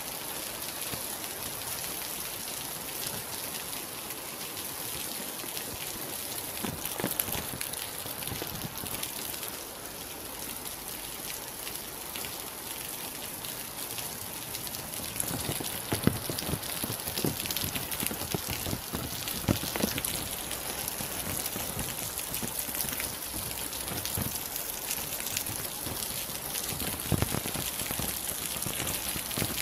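Steady rain, with many separate drops pattering and now and then a louder drop hitting close by. It grows a little heavier about halfway through.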